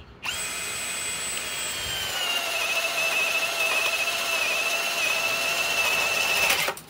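Ryobi cordless hammer drill on its low speed boring a 1-1/2-inch wood bit through a thick wooden beam: a steady motor whine that drops in pitch about two seconds in as the bit loads the motor, then cuts off abruptly near the end as the bit catches breaking through and jolts the drill.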